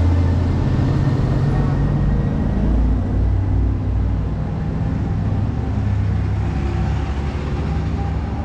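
Road traffic: a motor vehicle's engine running close by with a deep, steady hum over general street noise. The hum is loudest at the start and eases off somewhat partway through.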